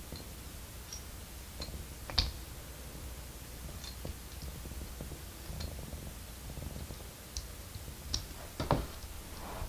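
Plastic LEGO pieces clicking and clinking as they are handled and pressed together: about ten scattered light clicks over a low steady hum, the loudest two about two seconds in and near the end.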